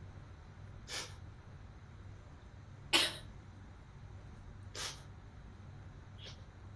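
A woman's short, sharp nasal breaths, four in all, one every couple of seconds, the second much louder than the others.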